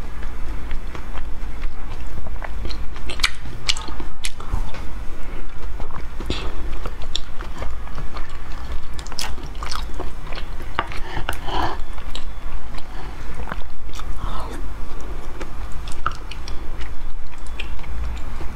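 Close-miked eating sounds: wet, sticky chewing and lip smacks from mouthfuls of a thick, stringy starch dessert with soft white balls, with many short sharp clicks scattered throughout. A low steady hum runs underneath.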